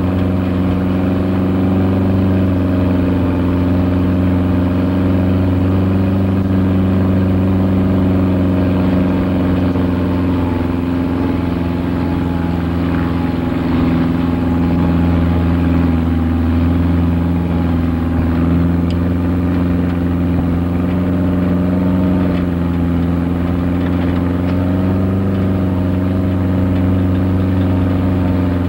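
Vehicle engine running steadily from inside the cabin while driving on a snow-covered road, with its pitch drifting slightly as the speed changes, over a hiss of road noise.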